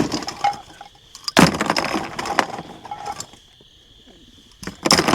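Hard clattering and clinking of hunting gear being handled and knocked together, a long rattling burst about a second and a half in and another near the end, with a faint steady high tone behind.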